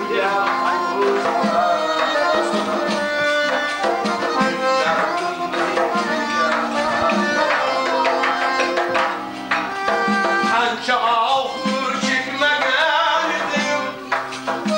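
Live traditional wedding music: a hand drum strikes steadily under sustained melodic instrument lines.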